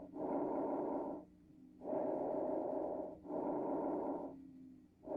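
Bronchovesicular breath sounds heard on auscultation of the back of the chest: a soft rushing on each breath in and out. Breath in and breath out are about equally long, roughly a second each, with a brief break between them and a longer pause between breaths.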